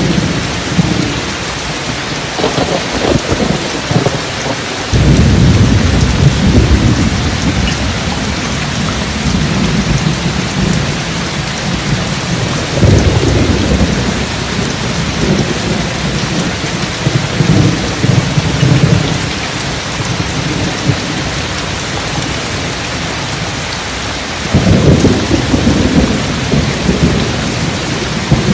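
Steady rain falling in a thunderstorm, with several long rolls of deep thunder rumbling over it; the first breaks in suddenly about five seconds in, and another swells near the end.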